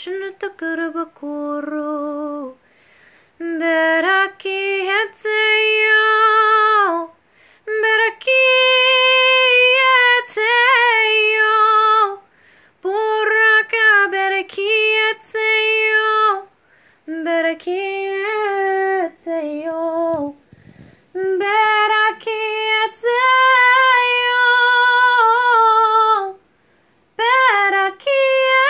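A woman singing a devotional song solo and unaccompanied, holding long notes in phrases of a few seconds with short breaks between them.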